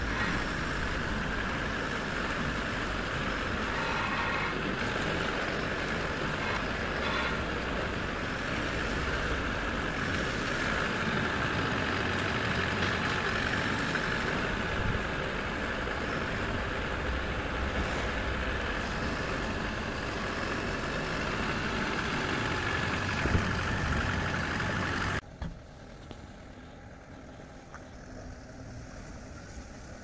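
Kia Bongo III refrigerated truck's engine running as the truck drives slowly around inside a large shed: a steady rumble with a constant high hum over it. About 25 seconds in the sound drops abruptly to a much quieter background.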